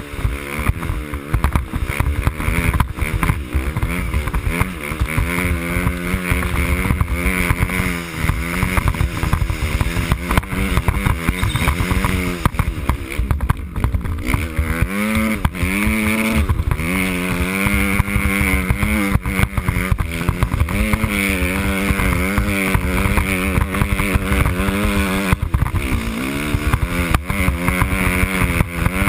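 Off-road motorcycle engine running while riding, its pitch rising and falling with the throttle, dipping and climbing again about halfway through.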